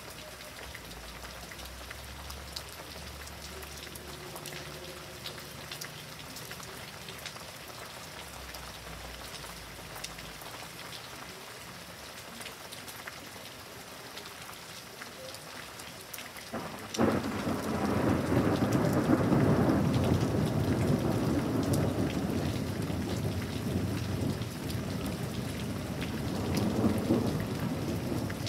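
Steady rain falling, with a faint low rumble in the first ten seconds. About 17 seconds in, a sudden loud thunderclap breaks and rolls on as a long, surging rumble of thunder.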